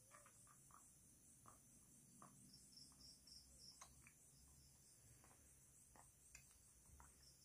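Near silence: faint room tone with a thin, evenly pulsing high hiss and a few soft small ticks.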